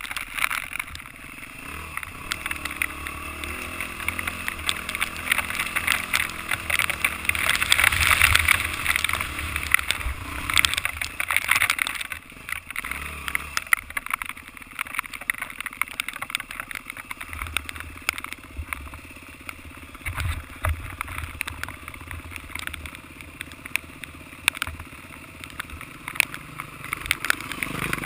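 Enduro dirt bike engine running at low, shifting revs on a rough descent, under a steady rush of noise and frequent clattering knocks, loudest from about a quarter to halfway through.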